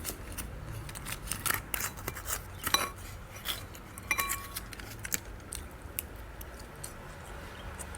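Metal eating utensils clicking and clinking against a plate, a dozen or so sharp strikes at uneven intervals, one leaving a short ring about four seconds in.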